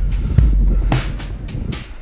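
Wind rumbling on the microphone, with a few short hissing noises in the second second.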